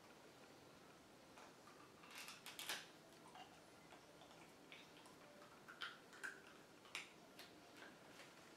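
Near silence, broken by a scattering of faint short clicks and rustles as a marker and a wooden board are handled.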